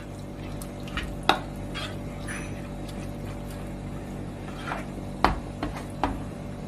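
A black plastic spoon stirring soaked brown rice, vegetables and water in a pot: wet sloshing and squishing, with a few sharp knocks of the spoon against the pot, the loudest about a second in and again past five seconds in. A steady low hum runs underneath.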